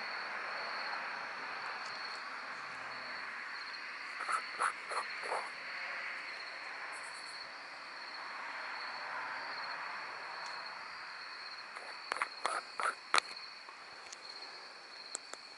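Crickets trilling steadily, a continuous high chirring over a soft insect hiss. A few short clicks come about four to five seconds in and again around twelve to thirteen seconds in.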